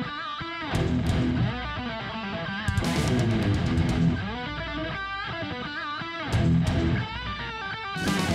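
Rock music led by electric guitar, with lead lines bending up and down over a heavy bass end and a few sharp crash-like hits.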